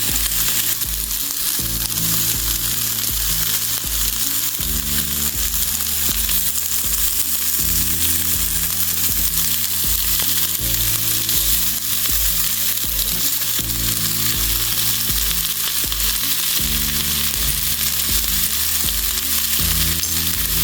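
Food sizzling as it fries in a pan: a dense, steady hiss. Background music with a steady low beat and bass line plays underneath.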